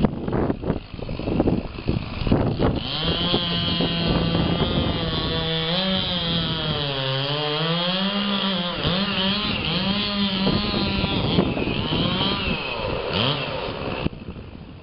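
Chainsaw running at high revs and cutting wood, its pitch dipping and recovering repeatedly under load, then fading out near the end. Before it starts, there are a few seconds of irregular knocks and cracks from brush and branches.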